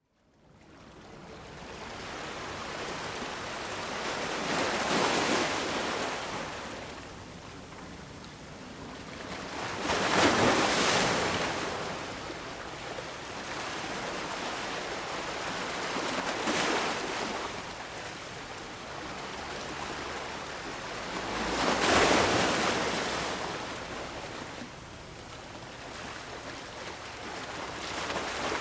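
Small waves washing against harbour rocks, a steady wash of water that swells into a louder surge about every five to six seconds, five times in all.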